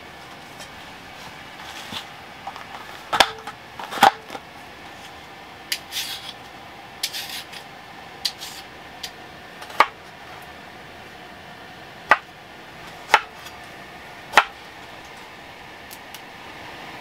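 Vegetable prep: scattered sharp taps and knocks of vegetables and utensils on a bamboo cutting board, with short scraping strokes of a vegetable peeler along a carrot in the middle, over a steady low hum.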